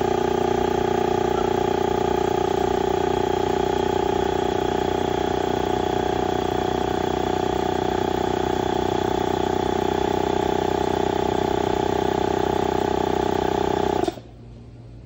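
Electric air compressor running steadily with a loud, even hum, pumping air through a hose into a bicycle tire; it shuts off suddenly near the end.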